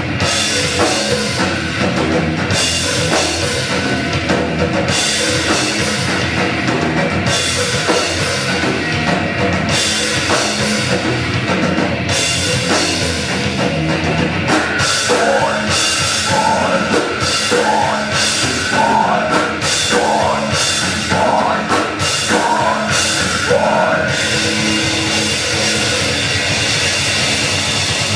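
Live heavy rock band playing an instrumental passage: full drum kit with kick drum under dense electric guitar and bass. About halfway through, a lead line of repeated bending notes comes in and drops out again a few seconds before the end.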